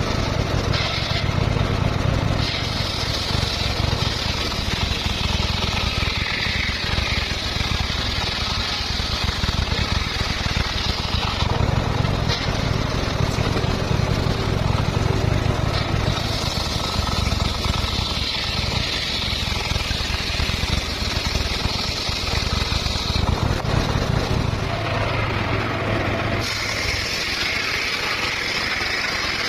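Motor-driven circular saw running steadily, its low rumble constant, with a higher whine-and-hiss rising over it in three long stretches as the blade cuts through the stock.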